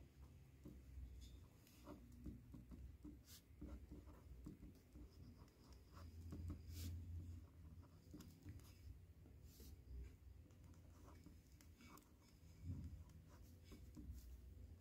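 Faint scratching of a fountain-pen nib on paper, in short strokes with small ticks, as a line of Arabic script is written.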